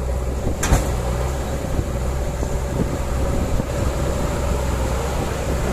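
Backhoe loader's diesel engine running steadily, with a single sharp knock about a second in.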